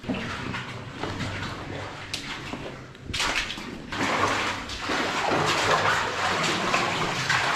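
Water splashing and sloshing in a flooded mine tunnel, louder from about three seconds in.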